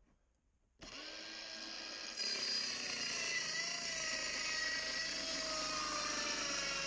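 Worx compact circular saw running and cutting through a laminated chipboard panel. It is a steady, high motor whine that starts about a second in and grows louder about two seconds in as the blade bites, its pitch sagging slightly under the load.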